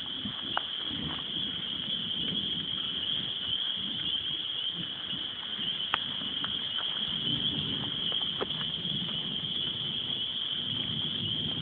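A steady, high-pitched chorus of crickets over the soft rustle of footsteps through grass, with a few faint clicks.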